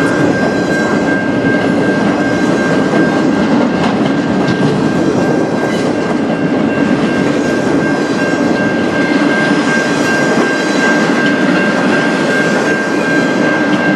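Empty flatcars of a freight train rolling past at steady speed: a continuous loud rumble and rattle of steel wheels on the rails, with a steady high whine running through it.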